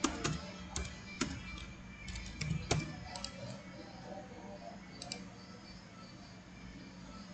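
Computer keyboard typing: irregular single keystrokes through the first three seconds, then a couple of clicks about five seconds in, over a steady low hum.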